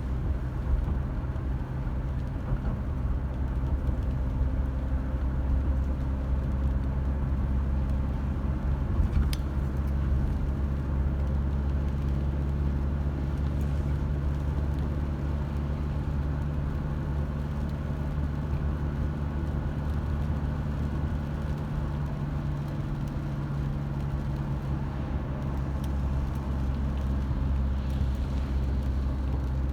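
Car engine running steadily with a low hum and road noise. There is one sharp click about nine seconds in.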